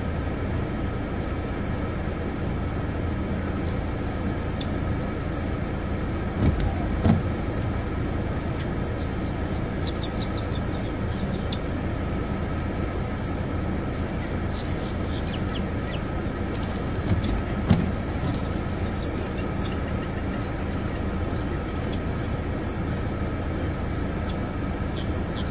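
Steady low rumbling background noise, with two pairs of short knocks, one about a quarter of the way in and one about two-thirds in.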